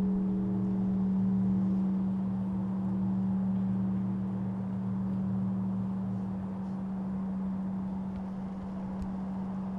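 The Maverick Hose Co. fire bell's hum slowly dying away after a strike: its higher overtones fade within a few seconds, leaving one low steady tone that keeps getting quieter.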